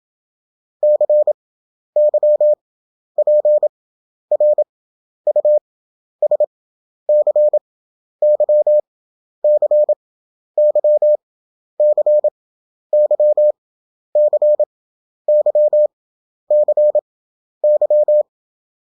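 Morse code (CW) practice tone: a single steady beep keyed in dots and dashes at 27 words per minute, with long gaps between characters (Farnsworth spacing, 11 wpm effective). About sixteen characters follow one another roughly a second apart.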